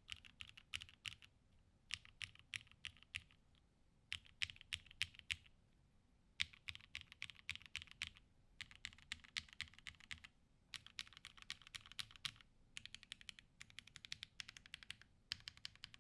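Typing on a plateless 7V mechanical keyboard with H1 60g switches in Cherry top housings and GMK keycaps. Quick runs of keystrokes last a second or two each, with short pauses between them.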